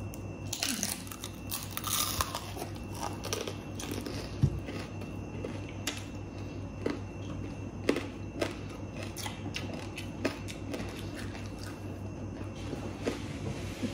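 Two people biting and chewing food close to the microphone: an irregular run of short crunches and mouth clicks, over a steady low hum.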